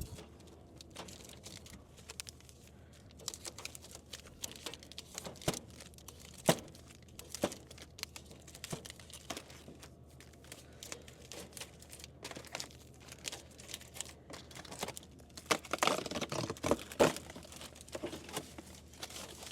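Wrapped candy crinkling, with scattered light clicks and knocks as the packets are handled and loaded into a vending machine; a denser stretch of crinkling comes near the end.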